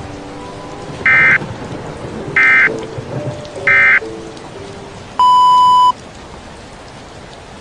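Three short bursts of EAS digital data tones, about 1.3 seconds apart: the end-of-message code that closes an alert. About five seconds in comes a loud, steady, slightly buzzy beep lasting under a second, over a steady bed of rain sound with faint held music notes.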